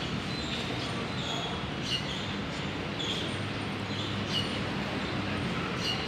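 Steady outdoor background rumble with short, high chirps at irregular intervals, about one a second.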